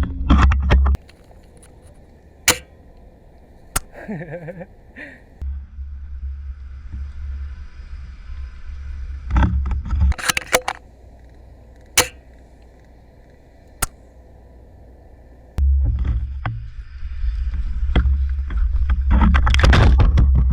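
Low rumble on the microphone in two long stretches, broken by a few single sharp cracks, typical of airsoft gun shots or BB impacts.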